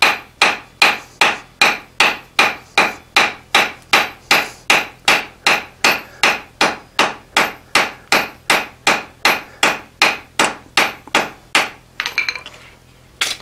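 Blacksmith's hand hammer striking the welding-hot end of a bundle of iron bars on an anvil, forge-welding it, in a steady rhythm of about three blows a second, each blow with a short ring. The blows stop about twelve seconds in.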